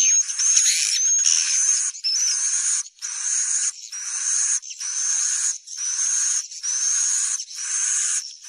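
Swiftlet lure call: a burst of quick twittering chirps in the first second or so, then a steady run of about eight buzzy chirping calls, each close to a second long with a thin rising whistle on top and a short gap between them. This is the call played to draw edible-nest swiftlets to roost in a swiftlet house.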